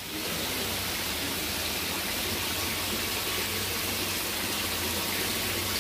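Water pouring from pipes into a shallow tiled holding tank, a steady splashing rush over churning, bubbling water, with a low steady hum underneath.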